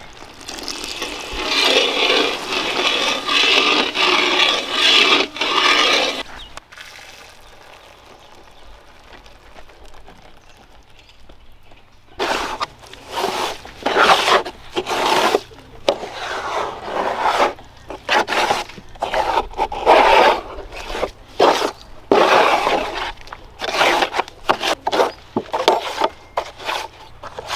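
A spoon or spatula scraping and stirring in a metal cooking pan, as sugar, water and food colour are mixed into syrup. It starts as a dense, steady rasp, goes quieter for several seconds, and then about halfway through turns into a long run of quick, irregular scraping strokes.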